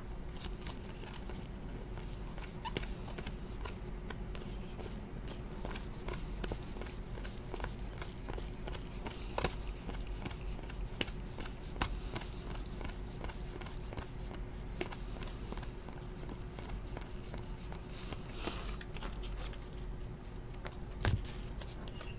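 Trading cards being handled and flipped through one by one, with faint, scattered clicks and slides of card against card over a steady low hum.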